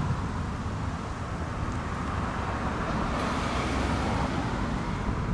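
Road traffic noise: a steady rush of passing cars, swelling a little about three seconds in.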